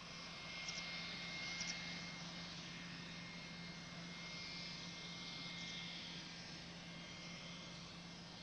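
Boeing 717's twin rear-mounted Rolls-Royce BR715 turbofans running at taxi power: a steady jet rush with a thin high whine.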